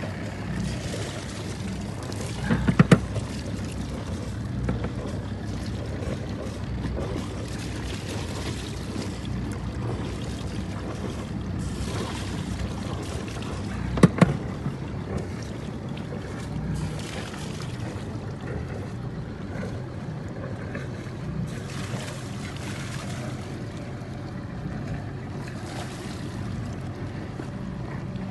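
Water rushing and splashing around a small inflatable dinghy moving through calm water, with a steady low rumble. Two sharp knocks, about three seconds in and again near the middle.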